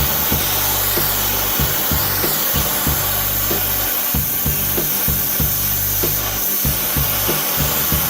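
Background music with a steady drum beat and bass line, over a continuous rushing noise.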